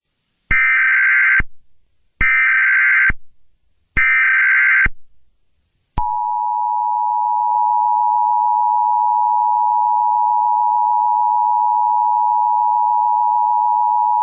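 Emergency Alert System header: three short bursts of warbling SAME data tones, each about a second long, then the two-tone EAS attention signal held as a steady dual-pitched tone for about eight seconds. Together they mark the start of an emergency alert broadcast.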